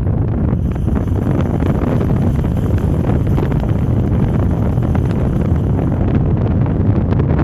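Wind buffeting a microphone held outside a moving car, over steady road and running noise from a 2006 Lexus ES 330.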